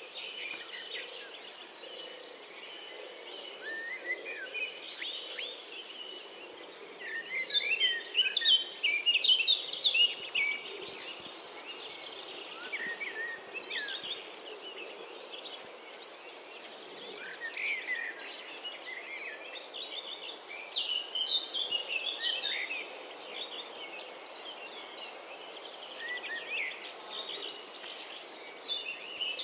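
European robin singing: phrases of quick, varied, high warbling notes with short pauses between them, over a steady high-pitched whine.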